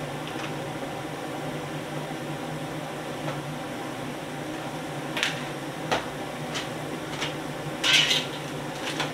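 Steady hum of a commercial wok range's gas burners and kitchen extraction. About halfway through come a few light clicks and knocks, then a brief louder clatter near the end.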